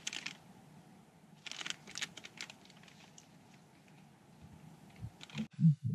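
Crinkling of a plastic energy-bar wrapper being torn open and handled, in short crackly bursts that come and go.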